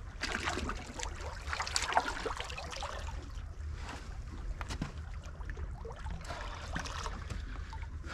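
Water splashing and sloshing around hands held in the shallows at the edge of the rocks, with small irregular splashes and a sharper splash about two seconds in. A steady low wind rumble on the microphone runs underneath.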